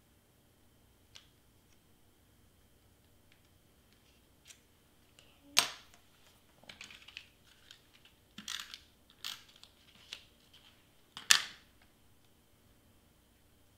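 Small clicks and taps of craft tools and cardstock being handled on a cutting mat, with rustling and a few quick clicks in the middle and two louder sharp knocks, one near the middle and one near the end.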